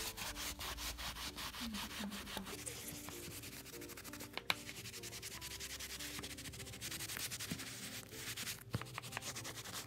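Slightly damp sponge scrubbing leather cleaner into a leather bag: quick back-and-forth rubbing strokes, several a second, with a single sharp click about halfway through.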